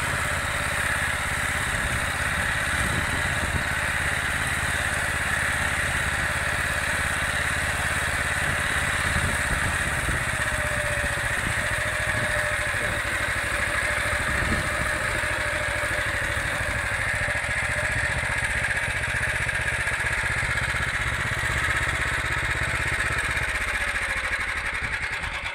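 Motor Sich MB6 walk-behind tractor running steadily under load, driving a KRN-2S rotary mower through alfalfa.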